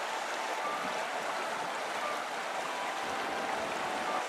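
Steady rushing of a bush stream, running water with no breaks.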